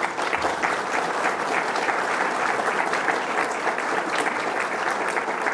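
Audience clapping steadily, the applause starting suddenly and keeping up without a break.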